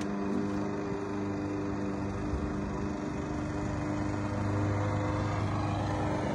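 An engine running steadily at idle: a constant low hum with a few steady tones, the low end growing a little stronger about four and a half seconds in.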